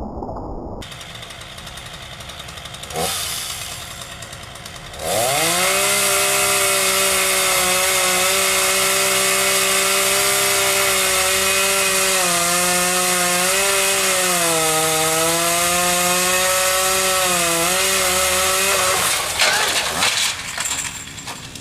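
Chainsaw running at high revs for about fourteen seconds, its pitch wavering and dipping as it works under load, then dropping away with a few knocks near the end.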